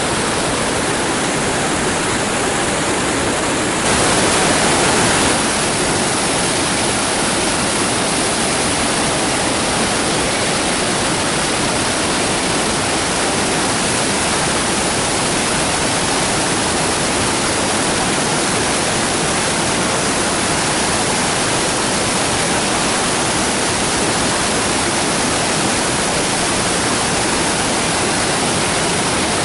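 Waterfall: a steady, loud rush of falling water, swelling briefly about four seconds in.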